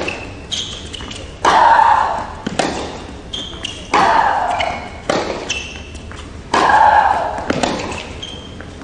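Tennis rally: racket strikes on the ball, with one player giving a loud, drawn-out grunt on each of her shots (three times, about two and a half seconds apart). Short high squeaks of shoes on the court come between the shots.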